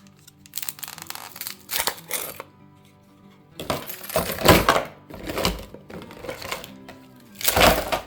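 Ice-sphere tray being twisted back and forth to free its frozen spheres: crackling and creaking of the tray and ice, with louder clunks of ice about four to five seconds in and again near the end, over soft background music.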